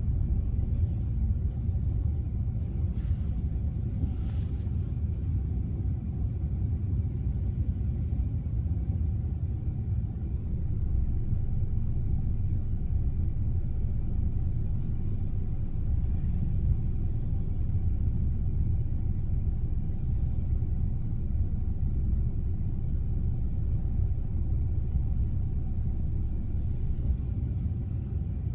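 Steady low rumble of road and engine noise inside a moving taxi's cabin.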